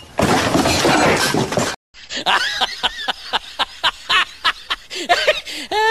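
A loud, noisy burst lasting under two seconds. Then, after a brief gap, a long run of rapid laughter, about five short pulses a second, dubbed over the footage of the laughing lion.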